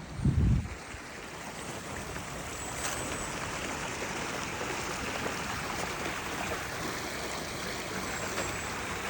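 Creek water running and rushing over rocks and rubble: a steady rushing that builds over the first couple of seconds and then holds. A low thump at the very start.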